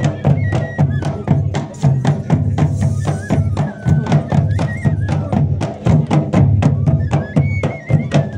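Live folk band of barrel drums and wind pipes: the drums beat a steady, quick rhythm of about five strokes a second under a high, wavering pipe melody.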